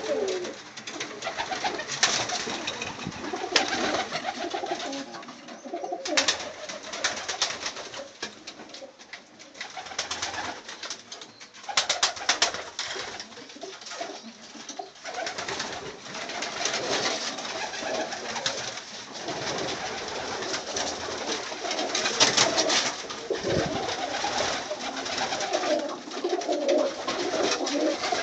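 A flock of Budapest highflyer pigeons cooing over one another in a low, wavering warble, with short rustling bursts of flapping wings now and then.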